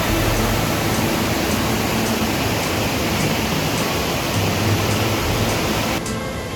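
Steady rushing roar of a large waterfall. Near the end it gives way to music.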